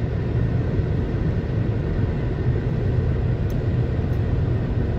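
Steady low rumble of a car's engine and road noise heard from inside the cabin while driving, with a couple of faint clicks near the end.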